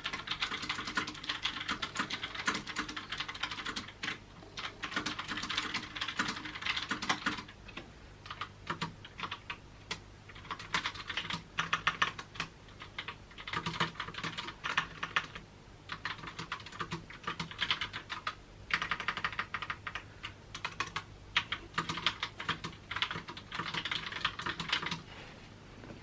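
Fast typing on a Logitech POP Keys mechanical keyboard with tactile brown switches: a quick clatter of keystrokes in runs, with short pauses about eight seconds in, about fifteen seconds in, and again near the end.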